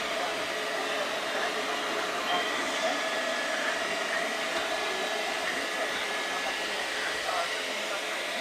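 Vacuum cleaner running steadily, a constant whine over a rush of air.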